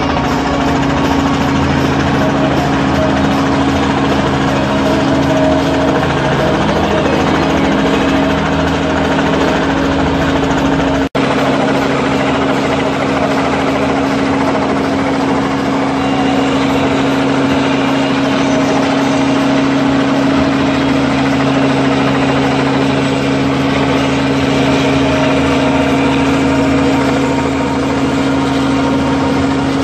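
Helicopter hovering overhead: a loud, steady drone of rotor and engine, with a momentary cut-out about eleven seconds in.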